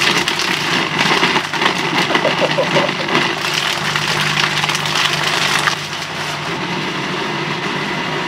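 Countertop jug blender running, chopping raw pork liver into a puree. Loud and rough at first, it settles about six seconds in to a steadier, slightly quieter whir as the liver turns smooth.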